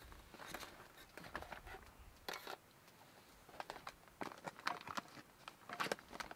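Irregular rustling, crinkling and light taps of hands handling things while preparing food.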